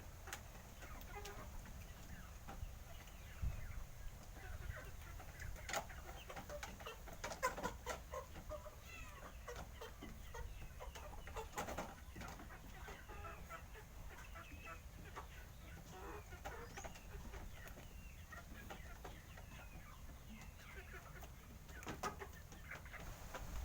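Chickens clucking, many short calls in quick succession, with scattered sharp clicks.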